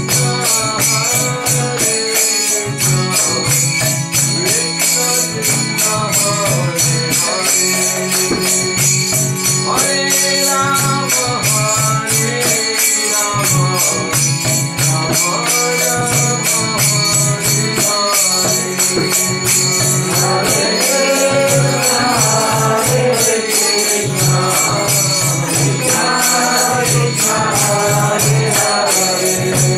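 A man singing a devotional bhajan, keeping a steady beat with small brass hand cymbals (kartals), over a sustained drone.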